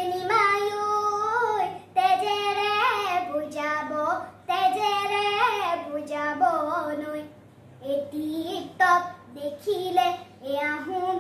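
A young girl singing a Bihu song unaccompanied, in phrases of long held notes with short breaks between them.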